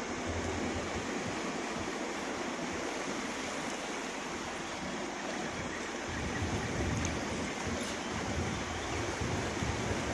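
Floodwater rushing and sloshing against a jeep as it drives through deep water, a steady wash of noise with a low rumble that grows louder about six seconds in.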